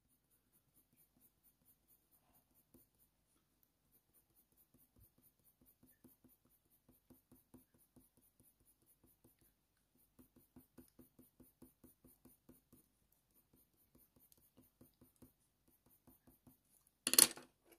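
Faber-Castell Polychromos colour pencil shading on hot-press watercolour paper: faint, quick, short strokes, several a second, starting about six seconds in. A brief louder sound comes near the end.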